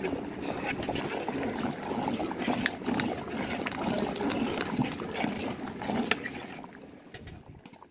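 Large aluminium pot of hilsa vaturi boiling hard, bubbling and gurgling, with short clicks as a metal spatula stirs it against the pot; it dies down near the end.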